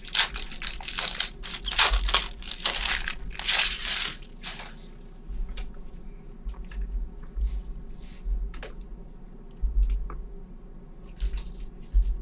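Trading-card pack wrappers being torn open and crinkled, thick and busy for the first few seconds, then thinning to sparser crackles and light taps as the wrappers and cards are handled.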